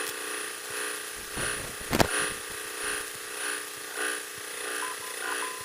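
Cessna's single piston engine at taxi power, heard through the headset intercom as a steady drone that swells and fades about twice a second, with one sharp click about two seconds in.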